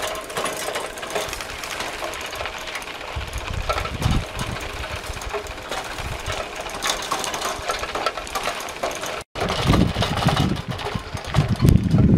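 A bicycle rattling as it is ridden over a rough gravel road, with wind rumbling on the microphone. The sound cuts out briefly about nine seconds in, and the wind rumble is heavier afterwards.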